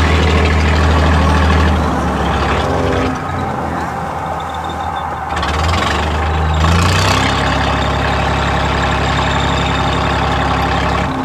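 Fishing boat's diesel engine running with a low, steady drone. It drops back about three seconds in and picks up again about six to seven seconds in, under a constant hiss of wind and choppy waves.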